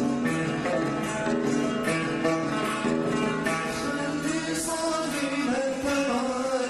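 Traditional Yemeni song: a plucked string instrument plays a rapid melody of plucked notes, and a wavering singing voice comes in about five and a half seconds in.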